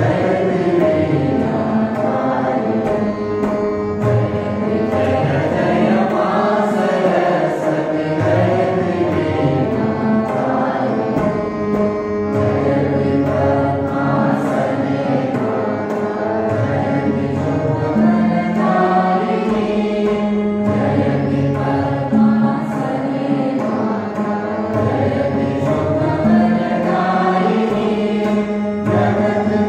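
A group of voices singing a song together, with instrumental accompaniment and light percussion keeping a regular beat.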